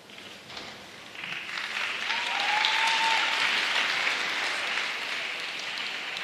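Arena audience applauding, swelling about a second in and slowly tapering off, with a brief whistle from the crowd near the middle.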